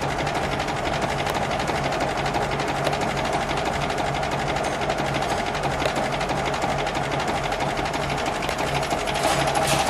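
1936 Alvis Firebird's engine idling with a fast, even mechanical clatter.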